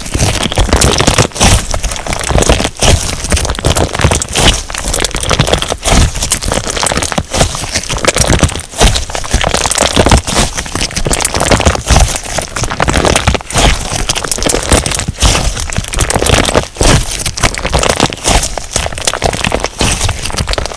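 Crunchy slime being squeezed and kneaded by hand, giving a loud, dense crackling and popping that swells and eases with each press, about once every second or two.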